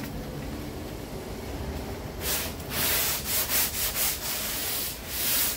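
Hand sanding block with 80-grit paper rubbed back and forth over body filler (Bondo) on a car's quarter panel: a run of rasping strokes, about two a second, starting about two seconds in.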